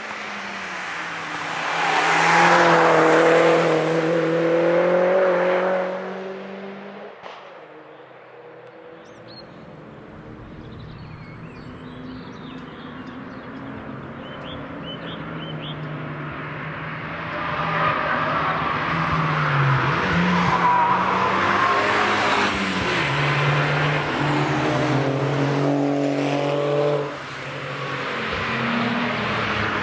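A Mini hatchback passes at speed on a race track with its engine running hard, its pitch sliding as it goes by. After a quieter stretch with faint bird chirps, several cars approach and pass one after another, their engine notes overlapping and rising and falling.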